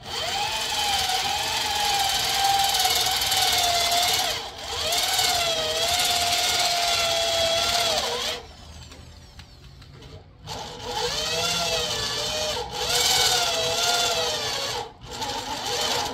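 Power drill boring a hole through a small metal plate, the bit squealing in the metal with a wavering pitch. It runs for about eight seconds, stops for about two, then drills again for about four and a half seconds.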